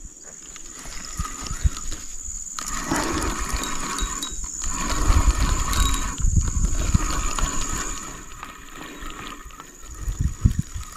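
A hooked fish being fought on rod and reel: rumbling handling and water noise that swells in the middle and fades, over a steady high drone of insects.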